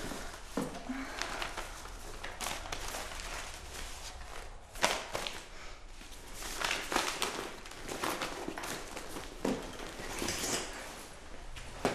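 Footsteps and thumps of a person moving about quickly, with a sharp knock about five seconds in and another near the end.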